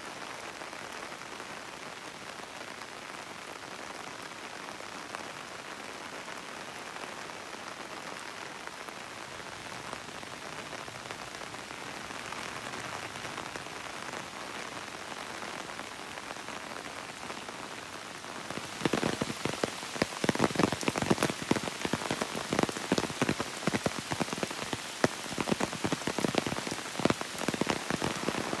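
Steady rain falling. From about two-thirds of the way through, loud, irregular drops tap sharply close by over the rain's hiss.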